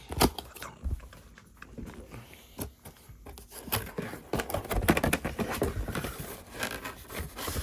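A speaker being unpacked from its cardboard box: packaging scraping and rustling, with many small knocks and handling noises, busiest in the second half.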